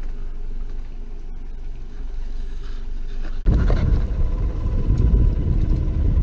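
A steady low hum, then a sudden switch about three and a half seconds in to the loud low rumble of a fishing boat running while trolling.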